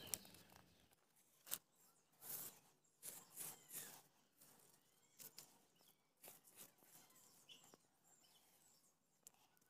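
Faint scraping and rustling of dry soil and straw as a hand pushes earth into a hole and presses it flat: a series of soft, short scuffs, most of them between about two and four seconds in, then a few scattered ones.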